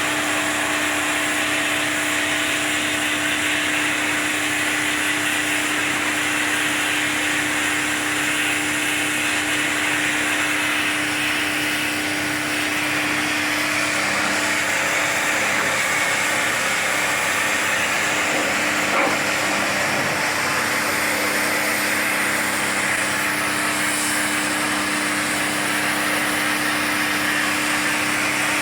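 Pressure washer pump running with a steady hum while its water jet hisses against the coils of a packaged AC unit during a wash-down. The hum wavers for several seconds midway.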